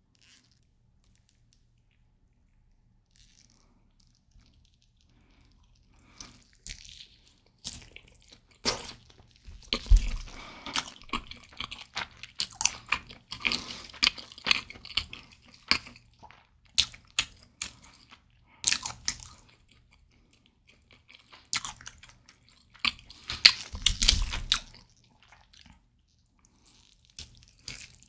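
Close-miked eating sounds from licking sauce and biting a sauce-covered barbecue chicken leg: wet, sticky mouth smacks and clicks in irregular bursts. They start after a few nearly quiet seconds.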